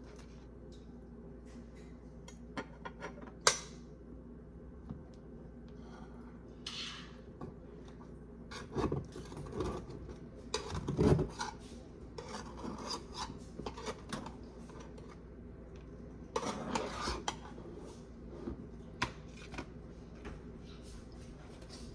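Kitchen utensils scraping and clinking against a dish, in irregular strokes with a few sharper knocks, the loudest about three and a half and eleven seconds in.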